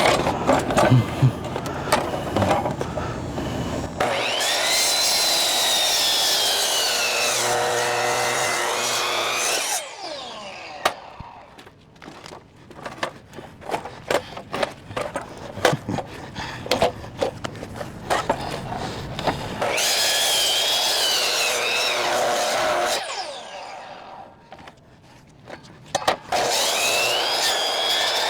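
Ryobi 12-inch sliding compound miter saw running and cutting into a palm log, its motor pitch sagging and recovering as the blade bogs down under the load. Between the two main cuts come scattered knocks and clunks, and the saw starts again near the end.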